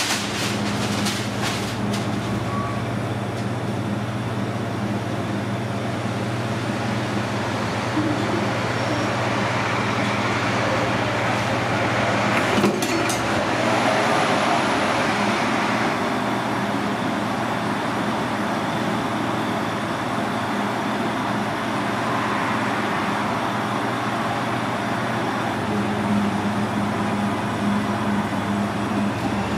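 Steady low hum and rushing noise of kitchen machinery such as fans, with a few faint clicks of utensils near the start and about halfway through.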